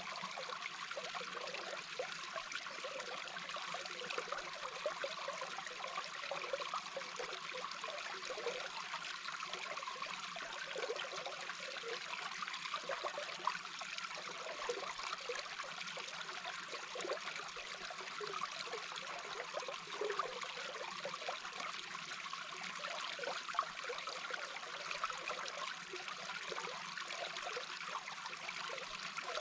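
A small brook heard from underwater: a steady rush of flowing water with quick, irregular bubbling throughout.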